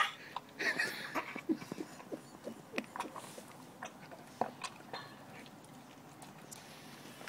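A dog chewing and biting at a piece of steak: irregular sharp clicks and wet smacks, busiest in the first five seconds and thinning out after that.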